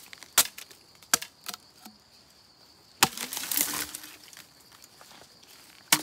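Machete blows chopping into a bamboo culm: about half a dozen sharp hacks, irregularly spaced, one followed by about a second of splintering crackle as the bamboo gives. A faint steady insect whine runs underneath.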